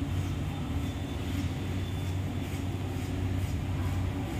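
Steady low mechanical hum, like a motor or machinery running.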